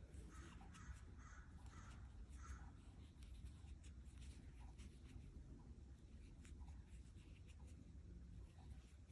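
Near silence, with faint scratching and rustling of a crochet hook pulling number 3 cotton yarn through stitches.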